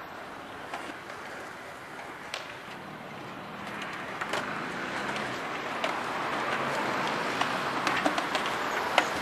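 Skateboard wheels rolling on concrete, a rumble that grows louder from about three seconds in, with sharp clacks of boards hitting the ground; the loudest clack comes near the end.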